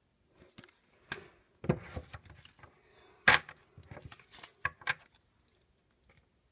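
Trading cards and the camera being handled on a wooden desk: a string of irregular taps, knocks and rustles, the loudest knock about three seconds in.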